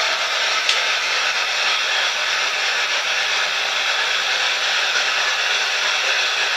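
Steady static hiss, even and unbroken, with a faint click about two-thirds of a second in.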